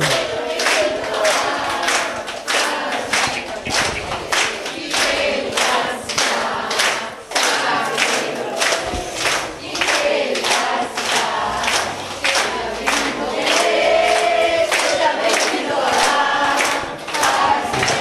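A crowd of people singing together while clapping their hands in time, about three claps a second.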